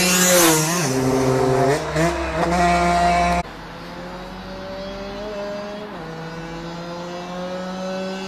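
Yamaha DT125 two-stroke single with a full Big One expansion exhaust, revving loud, its pitch dropping and climbing again twice. About three and a half seconds in, the sound drops suddenly to a much quieter, duller engine note that slowly rises in pitch.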